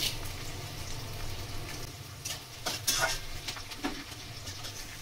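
Sliced onions sizzling in oil in an aluminium kadai. A steel spatula stirs them and scrapes and taps against the pan a few times, about two to four seconds in.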